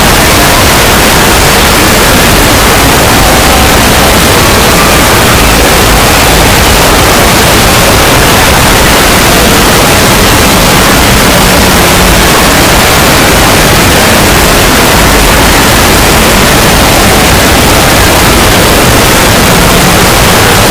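Loud, harsh, unbroken static-like noise spread evenly across all pitches, clipped at full volume, with no pauses or changes.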